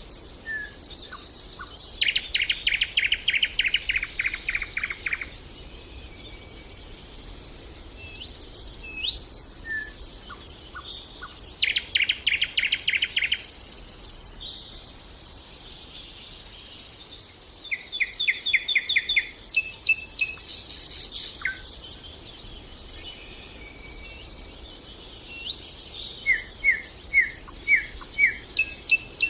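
Nightingale singing: phrases of fast repeated notes, each lasting a second or a few seconds, with pauses between and brief high chirps and whistles between phrases.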